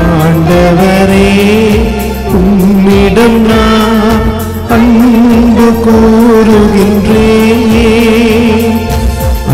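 Tamil responsorial psalm sung over keyboard and bass guitar, with long held, wavering notes. The singing pauses briefly between phrases, about two seconds in and again past four seconds.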